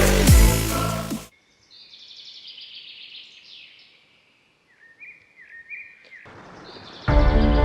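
Bass-heavy electronic dance music cuts off suddenly about a second in, leaving quiet birdsong: chirps, falling whistles and short trills from songbirds. Different music starts abruptly near the end.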